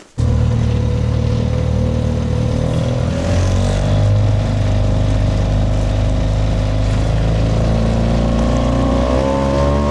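A boat motor running steadily on the water. It picks up speed a few seconds in and again near the end, its pitch stepping up each time.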